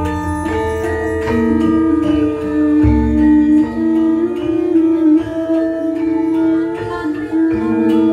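Gamelan ensemble playing: metallophones ring out overlapping melodic notes, and a deep gong stroke sounds about three seconds in.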